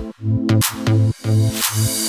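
Electronic dance music: the heavy bass beat drops out for a breakdown while pitched notes continue, and a rising noise sweep builds toward the end.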